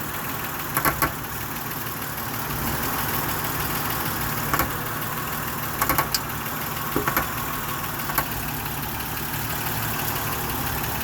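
2007 Honda Odyssey's 3.5-litre V6 idling steadily, with short clusters of sharp clicks about a second in, around the middle and again after about seven seconds.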